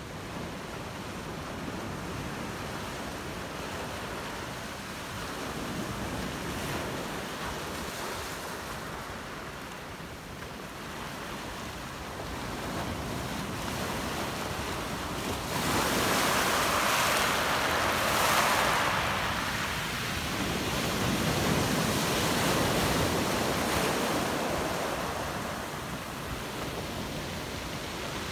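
Ocean surf breaking and rushing up the shore in a steady wash. A bigger wave surges loudest a little past halfway, and another follows a few seconds later.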